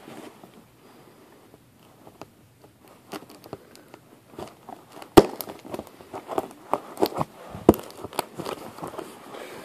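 Hands handling a box and its packaging: scattered rustles, scrapes and sharp clicks that begin about three seconds in, the loudest click about five seconds in.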